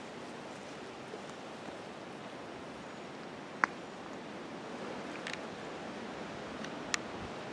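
Steady rushing outdoor noise in woodland with no clear rhythm, broken by a single sharp click about three and a half seconds in and a fainter click near the end.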